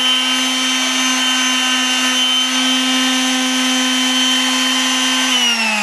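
Electric orbital sheet sander running steadily against the edge of a wooden board, a constant motor hum with a sanding hiss. Near the end the motor winds down, its pitch falling as it is switched off.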